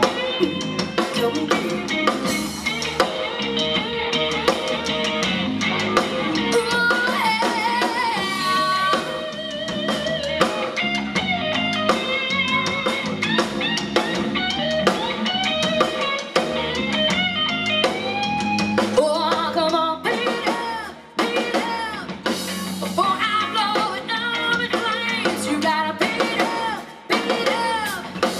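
Live country-rock band playing: a woman singing lead over electric guitar, bass guitar and a drum kit. Twice in the second half the band drops out for a moment before coming back in.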